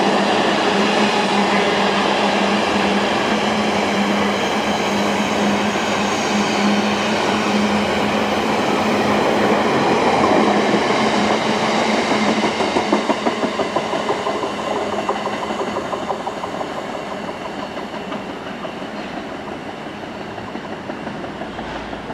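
Freight train of empty container flat wagons rolling past, a dense rumble of wheels on rail with rhythmic clattering and a steady hum that stops about halfway. The sound then fades gradually as the last wagons go by.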